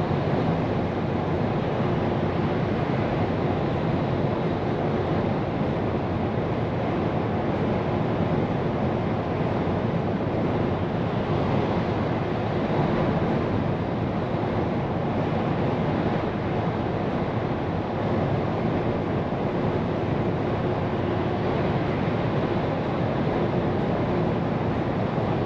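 Scania P410 car-carrier truck driving at a steady speed: a continuous, even rush of tyre, wind and engine noise heard from inside the cab.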